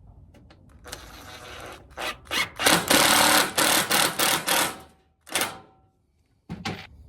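Cordless impact driver with a magnetic bit driving a screw in several bursts: a short run, two quick blips, a long loud run of about two seconds, then two brief blips near the end.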